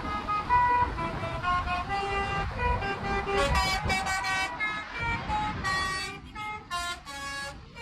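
Telolet horns playing a quick tune of changing notes, with the notes overlapping more densely from about three seconds in, over road and engine noise.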